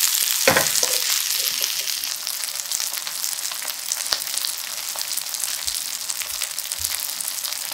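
Hot oil sizzling steadily with fine crackles under a cockle and vegetable pancake (kkomak-jeon) shallow-frying in a pan, easing slightly toward the end.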